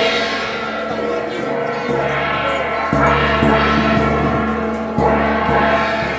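Hand-held metal gong beaten with a stick, struck about every one to two seconds, each stroke ringing on in a steady shimmer of tones.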